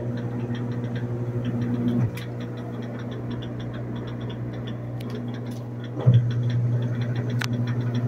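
Magic Queen Evoluzione 9 SX top-load washing machine running its spin cycle with the tub empty: a steady motor hum with a quick light ticking over it. The hum eases off about two seconds in and comes back stronger about six seconds in.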